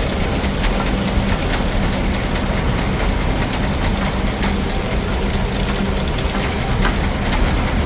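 Steam engine and belt-driven Frick sawmill running steadily, an even mechanical noise with a fast, regular ticking through it.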